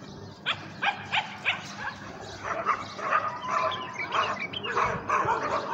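Trained decoy bulbuls calling from a cage: four short falling calls in the first second and a half, then a quicker, busier run of chattering notes with a brief steady whistle in the middle.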